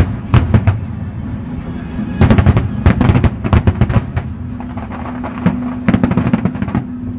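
Fireworks shells bursting overhead in rapid volleys of sharp bangs: a cluster at the start, a dense run from about two to four seconds in, and another around six seconds.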